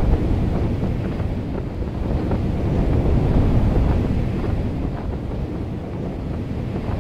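Strong wind buffeting the microphone: a dense, low rumbling noise that swells and eases in gusts.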